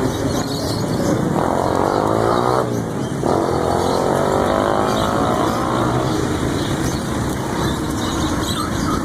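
Street traffic: a steady low rumble, with a motor vehicle engine rising in pitch from about a second and a half in, breaking off briefly, then running on again until about six seconds in.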